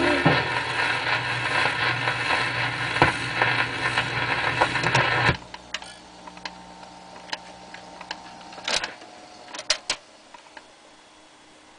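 1946 Farnsworth radio-phonograph at the end of a 78 rpm record: the worn stylus hisses and clicks in the run-out groove, then the sound cuts off suddenly about five seconds in as the automatic record changer lifts the tonearm. The changer mechanism then hums faintly and clicks as the arm swings back, with a cluster of sharp clicks a few seconds later.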